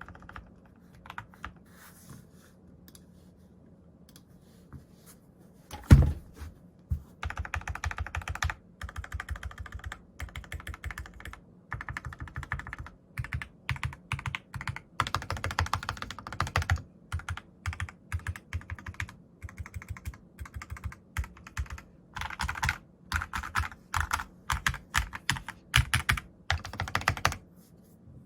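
Typing on a Glorious GMMK keyboard fitted with lubed Alpaca V2 linear switches and PBT keycaps, a clacky keystroke sound. A few scattered keystrokes come first, then one loud thump about six seconds in, then fast runs of typing, all over a faint steady buzz.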